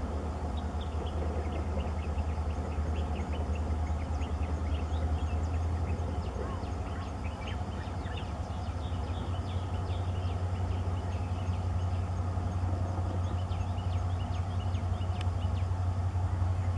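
EMD WDP4 diesel locomotive's 16-cylinder two-stroke engine droning steadily as it hauls a passenger train, growing a little louder near the end as it approaches. Birds chirp over it.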